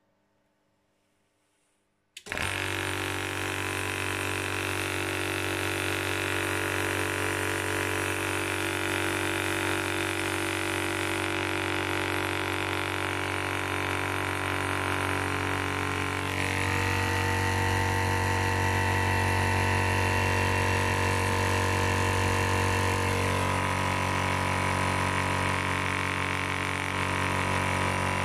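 AceEagle 300-bar (4500 psi) high-pressure PCP air compressor starting up suddenly about two seconds in, then running steadily with a deep motor hum while it charges. Its tone shifts a little about halfway through and again later.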